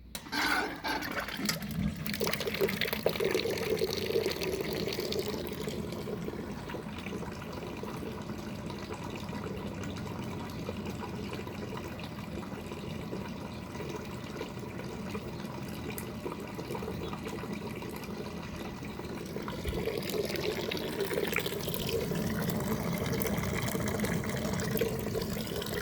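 Water running steadily from a shower fed by a Kampa Dometic Geyser instant gas water heater. It starts suddenly and grows a little louder near the end.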